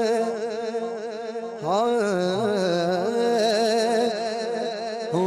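Urdu devotional song (naat) sung by a solo voice. It holds long, wavering notes with vibrato and swoops upward into a new sustained note about two seconds in.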